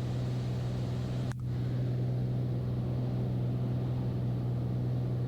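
Steady drone of a Beechcraft A36 Bonanza's six-cylinder piston engine and propeller as heard in the cockpit during the descent, with a brief click about a second in.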